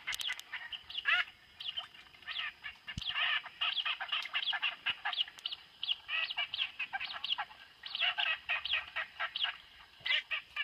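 Many birds calling at once: a dense, continuous run of short chirping and whistling notes, repeated quickly with brief lulls.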